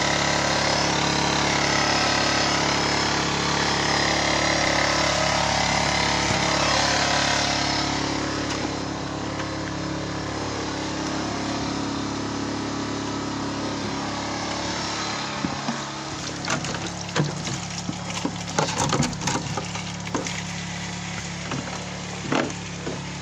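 Small portable petrol generator running steadily, loudest at first and a little fainter after about eight seconds. From about sixteen seconds in, a scatter of knocks and clunks sounds over it.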